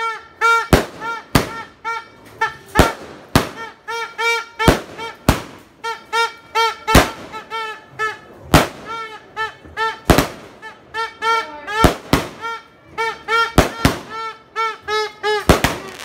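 A consumer fireworks cake (Tiger Fireworks Lightning Blitz, 16 shots) firing, with a sharp report every half second to a second and a half. Under the shots runs a fast, steady string of short pitched sounds.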